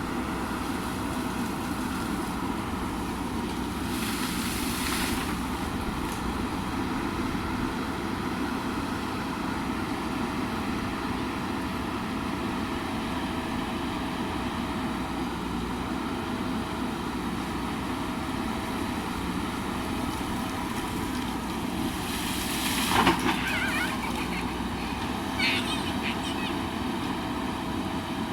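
JCB backhoe loader's diesel engine running steadily under work, with a steady whine over it. A brief hiss about four seconds in, and a louder scraping clatter about 23 seconds in, with a smaller one shortly after.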